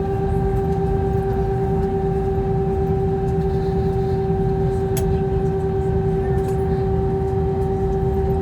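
Airbus A320-200 cabin noise: a steady low rumble under a steady hum with several higher tones above it, and a single sharp click about five seconds in.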